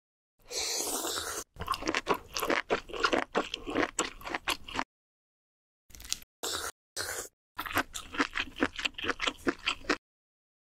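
Close-miked eating of spicy malatang noodles. A short slurp as the noodles go in, then rapid crunchy chewing with many quick crunches. The chewing stops for about a second midway, then a few short slurps and a second run of chewing follow.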